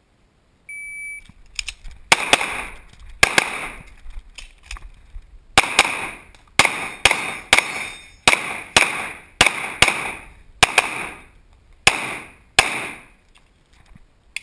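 A shot timer's start beep, then about thirteen pistol shots from a CZ 75 fired singly and in quick pairs over roughly twelve seconds, each echoing off the walls of an indoor range: the timed string of an IPSC stage.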